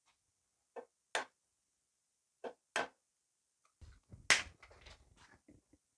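Eggs tapped against the rim of a mixing bowl to crack them: two pairs of short, sharp clicks. About four seconds in comes a louder knock followed by a brief clatter of things being handled.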